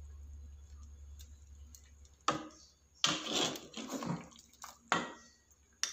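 Metal ladle stirring liquid soup in an aluminium pot: a low steady hum at first, then from about two seconds in a series of short swishes and scrapes of the ladle against the pot.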